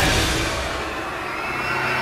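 Audience screaming and cheering as a dramatic music hit fades; steady music notes come back near the end.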